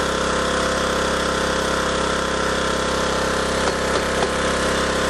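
Small portable gasoline generator engine running steadily under a 500-watt halogen light load, an even, unchanging hum.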